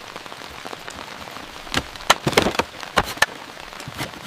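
Heavy rain falling steadily, with a scatter of sharp ticks of drops striking a hard surface from about two seconds in.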